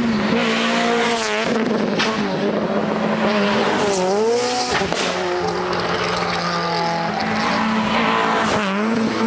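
Rally car engine heard out of sight, revving hard and repeatedly dropping and rising in pitch through gear changes and lifts, with a couple of sharp pops.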